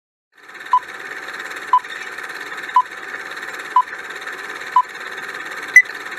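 Quiz countdown timer sound effect: a steady hiss with a short beep about once a second, six beeps in all, the last one higher and the loudest.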